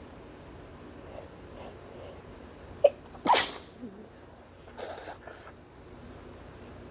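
A person sneezing once, a sharp catch of breath just before the loud burst of the sneeze about three seconds in. Short quieter breaths follow about a second later.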